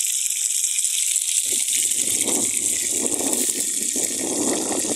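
Traíra pieces frying in hot oil in a skillet, a steady sizzling hiss. From about a second and a half in, oil poured into the pan from a bottle adds an uneven gushing sound over the sizzle.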